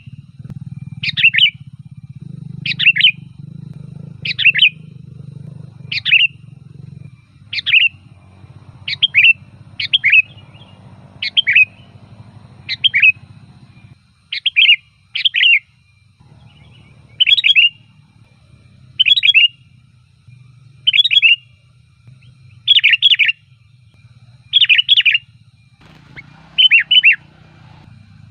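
Sooty-headed bulbul calling loudly, a short call repeated about every one and a half to two seconds, some given as quick pairs. A low steady hum runs underneath.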